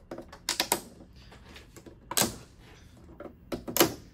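Plastic latches of a Toshiba LED TV's front frame clicking and snapping loose as the frame is prised up off the panel: a few sharp clicks about half a second in, a louder snap near two seconds, and a quick run of snaps near the end.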